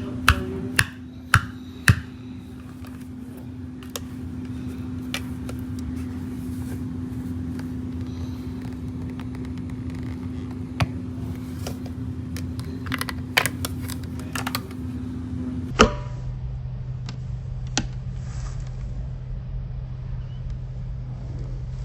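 Vacuum cleaner running with a steady hum, with scattered sharp clicks and crunches of debris being sucked up. Near the end the hum switches abruptly to a lower pitch and the clicks thin out.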